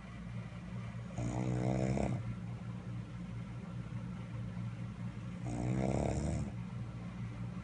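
A man snoring in his sleep: two loud snores about four seconds apart, each about a second long, over a steady low hum.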